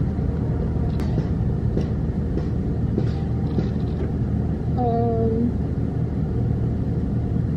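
Steady low mechanical hum of a frozen-drink (slushie) machine and store machinery while slush is dispensed into a plastic cup. A short pitched sound comes about five seconds in.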